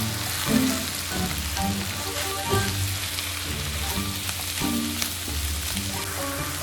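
Food sizzling and crackling in a frying pan, over background music.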